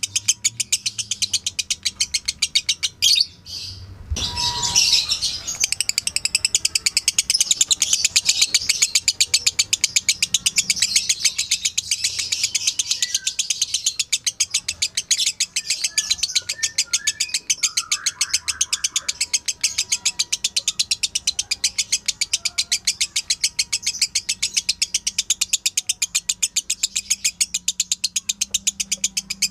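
Lovebird's long rapid chattering song (the 'ngekek' call): sharp high chirps repeated about five times a second, broken by a short pause about three seconds in.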